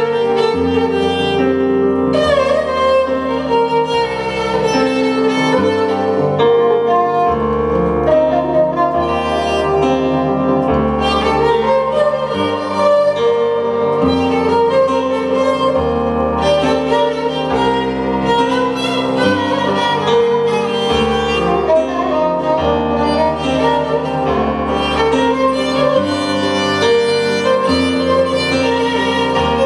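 Kamancheh, the Persian spiked fiddle, bowed in a continuous melody, over low sustained bass notes that change every second or two.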